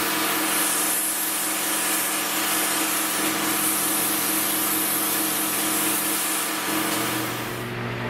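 Steady compressed-air hiss of a gravity-feed paint spray gun spraying a coat of paint, with a low hum underneath; the hiss fades out near the end.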